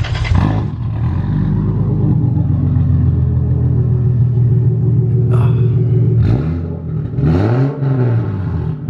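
Turbocharged Lexus IS300 inline-six through a straight-pipe exhaust, just fired up and idling steadily. Near the end it gets one quick throttle blip, the pitch rising and dropping back to idle.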